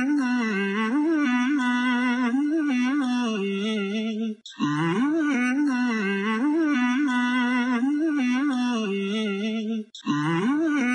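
Background soundtrack of a wordless humming voice carrying a wavering melody, the same phrase repeating about every five and a half seconds with a brief gap between repeats.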